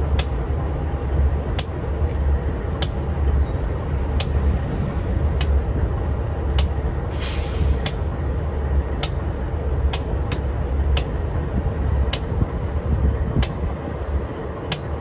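Freight train headed by a Union Pacific diesel locomotive, moving slowly: a steady low engine rumble with sharp wheel clicks over rail joints about once a second, and a brief hiss of air about seven seconds in.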